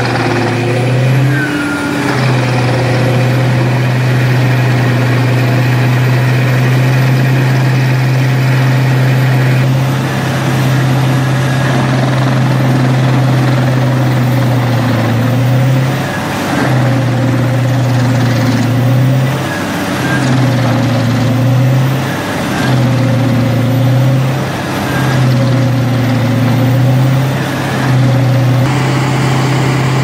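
Pezzolato truck-mounted wood chipper running hard as a crane grapple feeds a whole tree trunk into it, a heavy steady drone with a high whine over it. In the second half the drone dips briefly every two to three seconds as the machine bites into the log, then picks back up.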